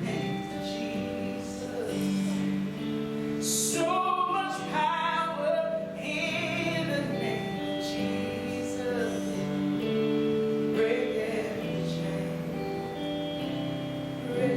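Worship music: sustained chords that change every second or two, with singing over them at times.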